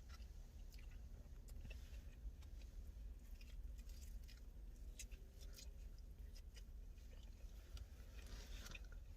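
A person chewing a mouthful of food close to the microphone, faint, with soft, irregular wet mouth clicks.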